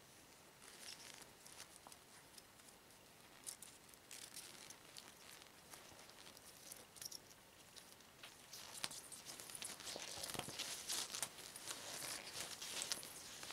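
Rubber gloves rubbing and creaking against each other and against clothing as the gloved hands work the cuffs, with faint rustles and small clicks. The handling gets busier and louder in the second half.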